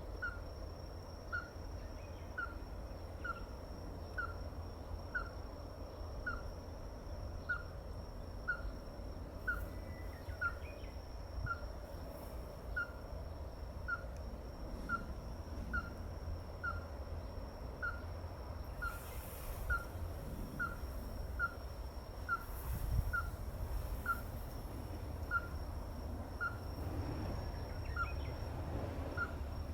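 Ruddy-breasted crake calling: a long series of short, sharp single notes, about one a second at first and quickening to nearly two a second. A steady high-pitched whine runs underneath.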